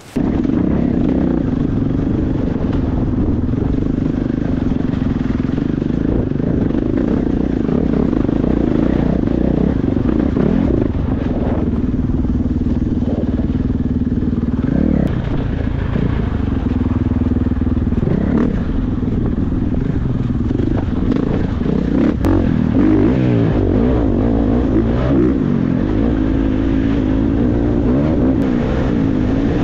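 Off-road motorcycle engine running under throttle on a rough dirt trail, its pitch rising and falling continually as the rider works the throttle. Heard from a helmet-mounted camera.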